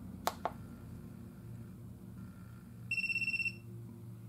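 CGSULIT TPMS80 handheld TPMS tool: two quick clicks of its trigger button, then about three seconds in a rapid string of high-pitched beeps lasting about half a second as it reads the left front tyre pressure sensor, signalling a successful sensor read.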